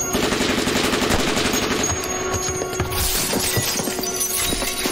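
Gunfire in a rapid burst of shots for about two seconds, then scattered single shots, with glass shattering around three seconds in.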